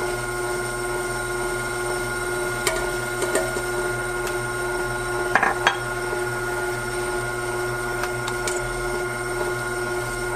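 Ultra tabletop wet grinder's motor running steadily with a constant whine as its dough-kneading attachment turns wheat dough in the drum. A few light knocks come through about three and five and a half seconds in.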